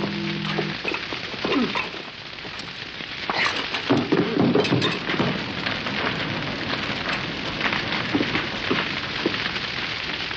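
Fire crackling: a dense hiss full of sharp crackles, with louder clattering moments about four to five seconds in. A church bell's ringing tone stops within the first second.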